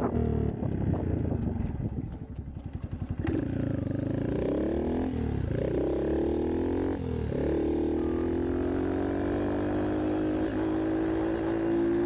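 Honda Monkey 125's single-cylinder engine running under way. The revs drop low about two seconds in, then climb and fall back several times as it shifts up, and rise steadily over the last few seconds.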